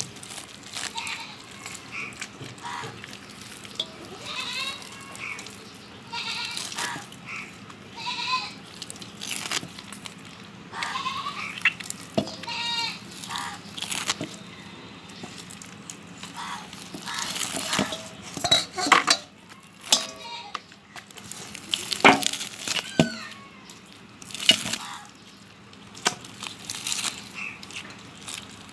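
Hand squeezing and rubbing the fibrous pulp of a ripe palmyra palm fruit in a steel bowl of water: wet squishing with scattered sharp knocks and clinks against the bowl, loudest in the second half. Short rising and falling pitched calls sound repeatedly in the background during the first half.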